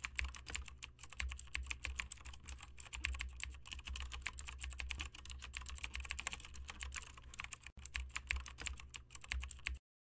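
Rapid computer keyboard typing, a dense unbroken run of clicks over a low steady hum, cutting off suddenly near the end.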